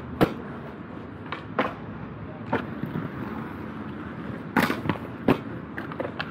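Aggressive inline skates on concrete: a sharp clack of the skates landing just after the start, then the wheels rolling over the concrete with scattered knocks and scuffs. The two loudest knocks come about four and a half and five seconds in.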